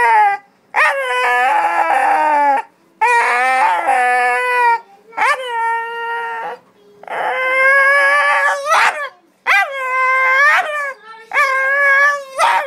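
Dog howling and yowling in a run of about six drawn-out calls with short gaps between them, the pitch bending up and down like a dog 'talking'.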